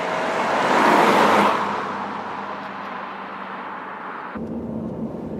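A car drives past close by, its engine and tyre noise swelling to a peak about a second in and then fading as it drives away. Near the end the sound cuts to the steady low hum of the engine heard from inside the car's cabin.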